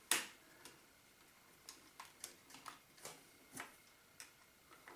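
Irregular small clicks and taps of AAA batteries and a plastic battery compartment being handled as batteries go into a toy RC car, with one louder click right at the start.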